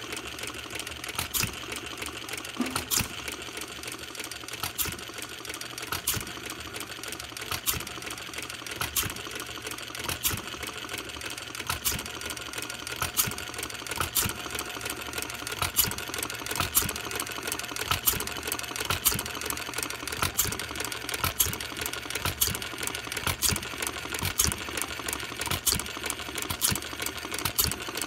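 Scale-model Red Wing gas engine running, with sharp clicks at uneven spacing over a steady mechanical clatter. It runs fairly well but is not yet tuned the way the owner wants: its mixer still needs work.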